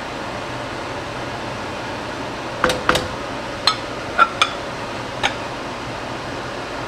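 Kitchenware clinking: a bowl and spatula knock against a wok about six times, in short sharp clinks, a few with a brief ring, while fried rice is scooped into the bowl and turned out onto a plate. A steady hiss runs underneath.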